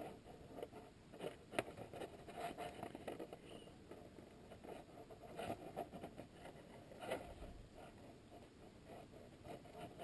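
Faint rustling and small irregular clicks of insulated wires being handled and pushed into a crimp-type butt connector, the harness wires brushing and tapping against each other. Two sharper ticks stand out, about a second and a half in and about seven seconds in.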